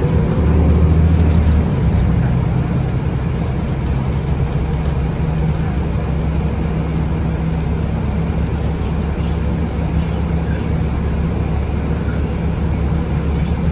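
Inside a BCI Citirider city bus: its Cummins ISB 6.7 six-cylinder diesel is loudest for the first couple of seconds, then runs steadily under the noise of tyres on the road.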